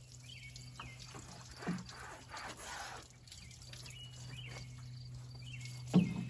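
Water pouring from a plastic watering can and splashing onto the rusty metal of a skid steer, rinsing off muriatic acid, over a low steady hum and a few short bird chirps. A dull thump near the end.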